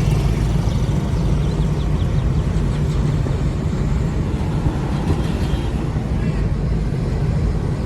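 A motor vehicle running steadily: a constant low engine hum with road noise.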